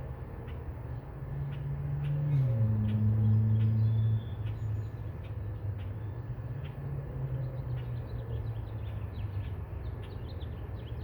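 Birds chirping, over a low steady drone that drops in pitch about two seconds in and stops suddenly about four seconds in, then returns more faintly.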